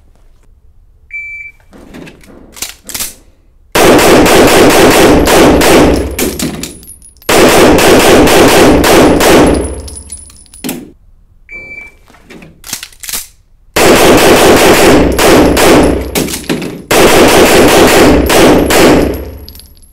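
Rapid pistol fire on an indoor range, in two runs. Each run starts with a short shot-timer beep and a few clicks of handling as the pistol is picked up and loaded, then two fast strings of shots with a short break between them, ringing off the walls.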